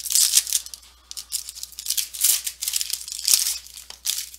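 Foil wrapper on a trading-card box crinkling as it is cut open with scissors, in a run of short rustling bursts.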